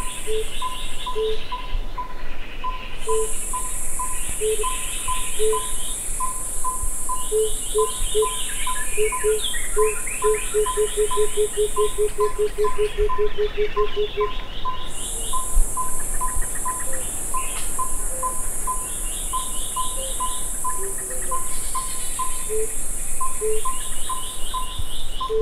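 Tambourine dove (Turtur tympanistria) singing: a series of low cooing notes, spaced at first, that speed up from about 7 s into a rapid run which stops about 14 s in; spaced notes return near the end. A high steady insect buzz with a break in the middle, a repeated higher note about three times a second, and other birds' trills run alongside.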